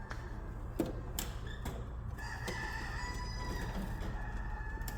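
Chickens calling in the background, one drawn-out high call about halfway through, over a steady low hum, with a few light clicks in the first two seconds.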